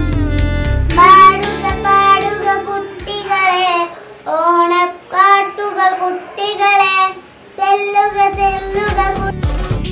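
A young girl singing solo, unaccompanied for most of the time. Instrumental backing music is still playing for about the first second, and a bass-heavy music track comes back in near the end.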